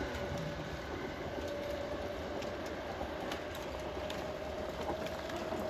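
A Hankyu 6000/7000 series electric train pulling away into the distance: a steady low rumble from the track with scattered light clicks, and a faint whine slowly rising in pitch.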